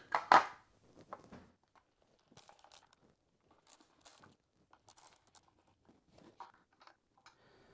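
Plastic fan motor cover being fitted and its screws turned in with a hand screwdriver: faint scattered clicks, scrapes and rustles, after a brief louder sound at the very start.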